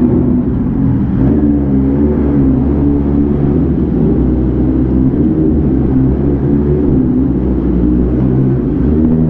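A motor vehicle's engine running steadily at low revs, close up, with a low rumble and a slightly wavering pitch.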